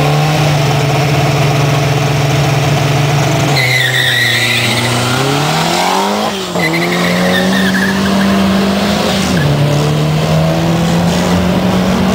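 Drag-racing car engine held at steady revs, then launching with its tires squealing while the engine note climbs, dropping back twice as it changes gear.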